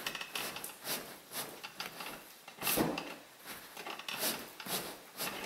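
Reclining rear seatback of a 2007 Toyota Avalon being pushed by hand after its release handle is pulled, giving irregular soft clunks and rubbing of the seat mechanism and leather. The loudest knock comes about three seconds in.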